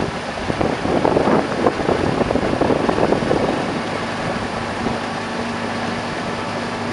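Outboard motor of a launch running steadily, with a steady hum coming in about halfway through.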